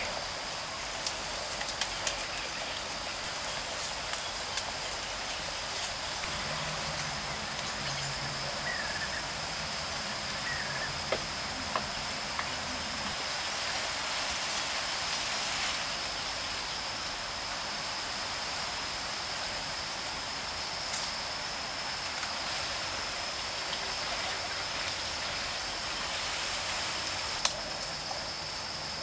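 Forest ambience dominated by a steady high insect drone, with a thinner, higher insect whine over it at the start and end. A few faint taps are heard, twice in the middle and once near the end.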